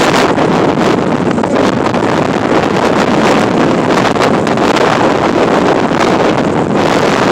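Strong, gusty wind ahead of an approaching thunderstorm, buffeting the microphone as loud wind noise.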